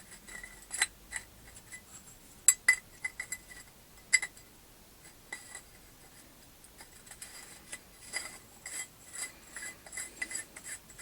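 Small metal propane-torch parts being handled and knocked together: scattered light clinks and taps with a faint metallic ring. The sharpest knocks come a little over two seconds in and about four seconds in, and the taps grow busier in the second half.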